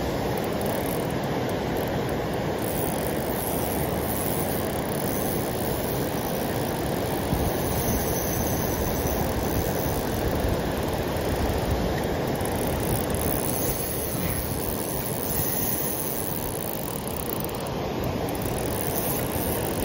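Steady rushing of river water spilling over a low dam, an unbroken noise without pauses.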